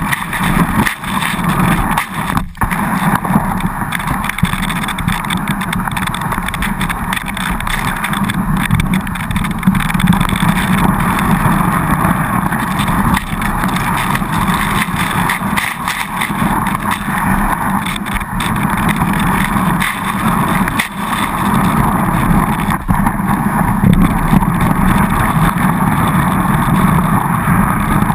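Steady rush of wind on a GoPro Hero2's microphone, mixed with the hiss of skis running fast over snow.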